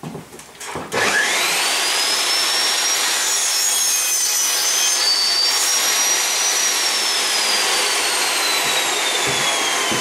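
Sliding miter saw with a negative-rake aluminium-cutting blade, started about a second in with a quickly rising whine, cutting an aluminium V-slot extrusion lubricated with wax. Loud and steady, with the blade's whine slowly falling over the last few seconds as it winds down.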